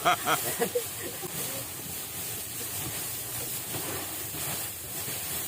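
Engine of a rice harvesting machine running steadily, a continuous even noise.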